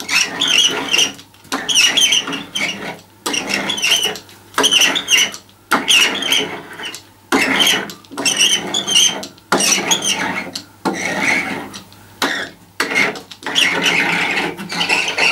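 A rubber hand roller pressed back and forth over a freshly laid vinyl decal on a pinball cabinet panel, about a dozen strokes of roughly a second each, with short high squeaks on each pass as the decal is bedded down.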